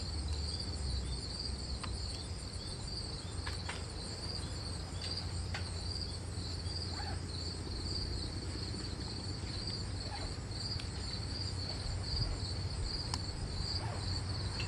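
Steady, evenly pulsing high chirping of insects, likely crickets, over a low hum, with a few faint clicks.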